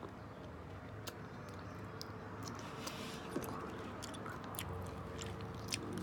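Someone chewing honeycomb and its wax: wet, sticky mouth sounds with scattered small clicks over a faint steady hum.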